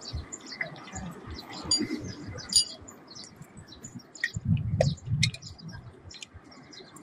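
Small birds chirping over the knocks and clicks of a steel tyre lever working a tyre bead onto a spoked moped wheel rim, with a cluster of dull knocks about two-thirds of the way through.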